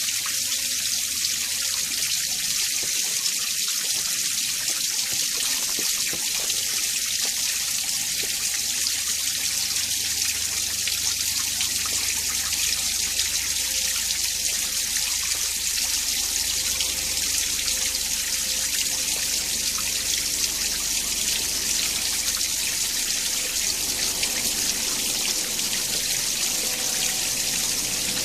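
Winter mountain stream flowing steadily, a constant bright rush of water with no breaks.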